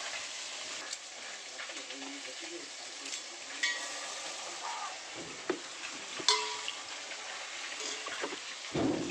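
A hand rubbing and scraping inside a metal cooking pot over a steady hiss, with a few sharp metal clinks of pots and utensils, two of them ringing briefly about three and a half and six seconds in.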